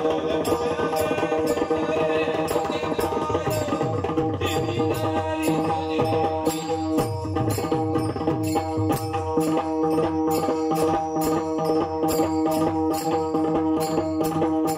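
Pakhwaj playing a rhythmic instrumental passage over steady held accompanying notes, with small cymbals keeping time. Between about five and nine seconds the deep bass strokes of the drum come thick and fast.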